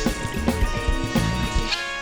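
Background music with a steady beat; the drums and bass drop out near the end, leaving sustained tones.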